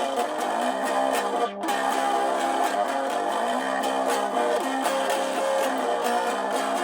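Guitar music, strummed and picked, with a steady flow of chords.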